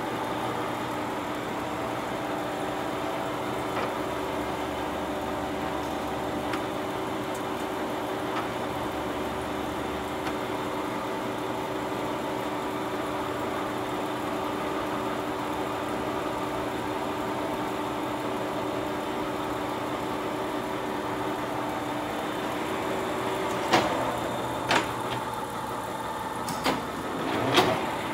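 Poreba TPK-80/3M heavy-duty engine lathe running with a steady hum from its drive. A few sharp clunks sound near the end, and by then its 32-inch four-jaw chuck is spinning.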